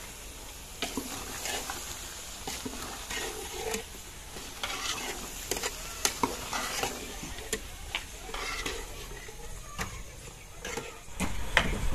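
Metal spoon stirring chopped vegetables in a steel pot, scraping and clinking irregularly against the pot, over a steady sizzle from the gas burner's heat.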